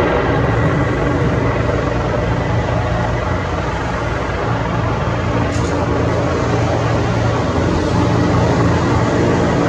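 Bell 412 EP helicopter hovering low on its landing approach: a steady, loud beat from its four-blade main rotor and the whine of its twin-turboshaft engines.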